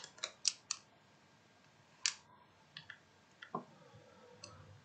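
Computer mouse clicking: a quick run of four clicks at the start, then scattered single clicks, the loudest about two seconds in.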